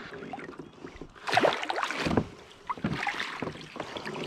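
Water splashing and sloshing beside a kayak in several short surges, the loudest about a second and a half in, as a large hooked char is fought at the surface next to the boat.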